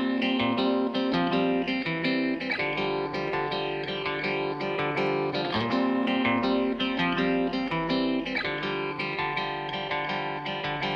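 Background music led by plucked guitar, with a steady rhythm of picked notes.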